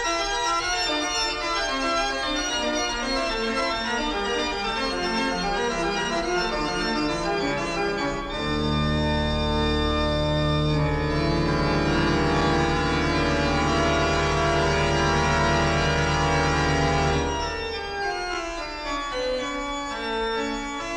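Instrumental soundtrack music. A melody steps downward for the first several seconds, then about eight seconds in a loud chord with deep bass comes in and is held for about nine seconds before it eases off near the end.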